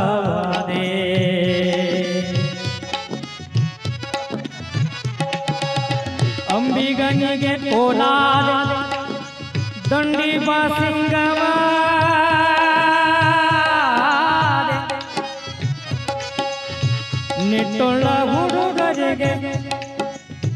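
Instrumental passage of a Kannada tatva devotional folk song: a steady hand-drum rhythm under a held, wavering melody line that comes and goes in long phrases.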